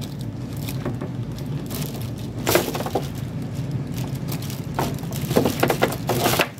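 Plastic cleaning connectors and tubing being handled and pushed onto a flexible endoscope's ports, giving a few short crackles and clicks about two and a half seconds in and again near the end, over a steady low hum.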